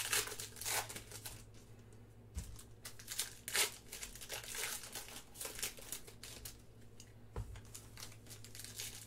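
Foil trading-card pack being torn open and crinkled by hand, in irregular crackling bursts. Two soft low thumps come about two and a half and seven and a half seconds in.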